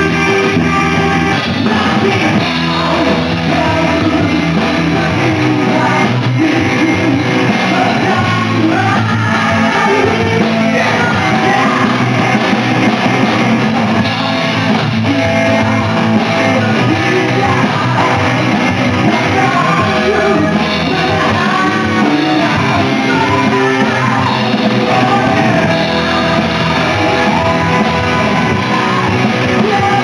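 Live rock band playing a song: guitars, bass and drums, with a lead vocal sung over them.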